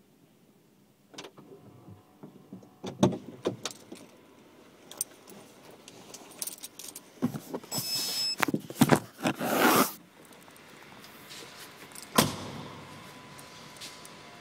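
Keys jangling and rattling among scattered clicks and knocks, busiest and loudest around eight to ten seconds in. About twelve seconds in comes one heavy thump, and a steady faint hiss follows.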